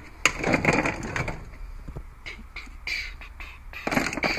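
Screwdrivers and other hand tools clattering and clinking as a hand rummages through a metal tool chest drawer, in several separate bursts of rattling.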